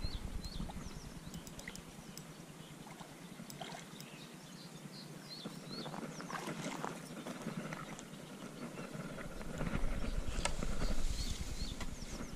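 Fishing tackle being handled: light knocks, clicks and rustling as a landing net is picked up and pushed out over the reeds, with faint small-bird chirps. There is a louder spell of rustling about ten seconds in.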